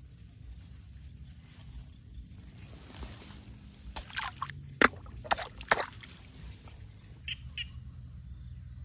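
A hand splashing and sloshing in shallow, muddy rice-paddy water, in a quick cluster of splashes about four to six seconds in, the sharpest near the middle, followed by two small drips or splashes.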